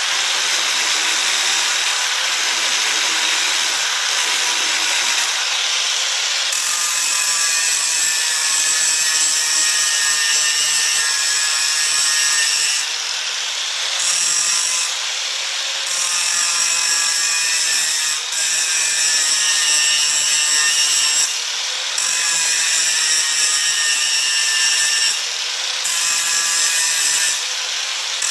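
Power tool cutting into the metal connectors of a baler chain so the links can be separated. It runs steadily with a high whine and eases off briefly every few seconds in the second half.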